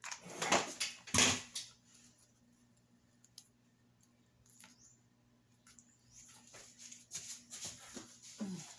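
Crinkling and rustling of an artificial rose and its stem tape being handled and wrapped, with two louder crinkles in the first second and a half and softer rustling near the end.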